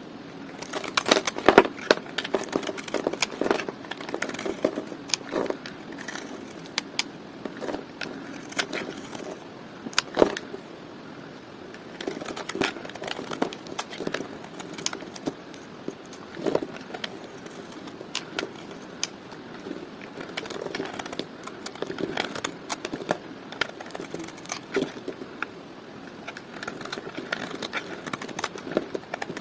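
Dry bar soap being cut with a blade, giving an irregular run of sharp cracks and crunches.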